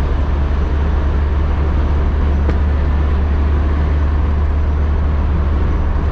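Vehicle driving at speed, heard from inside the cab: steady road and wind noise over a heavy, constant low rumble.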